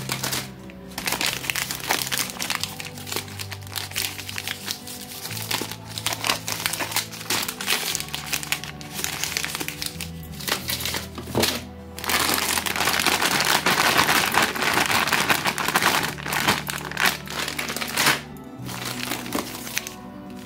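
Plastic chocolate and candy wrappers crinkling and rustling as hands shuffle and lift wrapped bars in a cardboard box, densest for several seconds past the middle. Background music with a bass line plays throughout.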